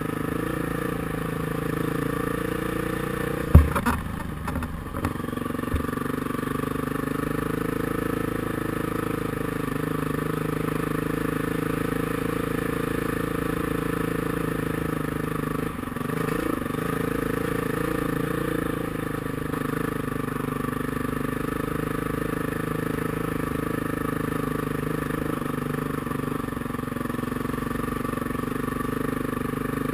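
Dirt bike engine running steadily at a slow trail pace. About three and a half seconds in there is one sharp loud knock followed by a few lighter clicks. Around the middle the engine note dips briefly and changes pitch, then settles back to steady running.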